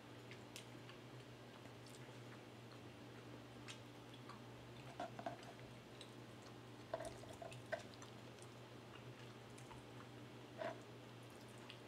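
Faint eating sounds of a person chewing food with her mouth, soft scattered clicks and a few brief wet smacks, the clearest about five, seven and ten and a half seconds in, over a low steady hum.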